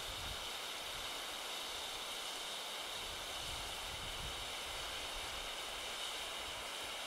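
A decades-old expired red pyrotechnic distress hand flare burning with a steady hiss: it still works despite its age.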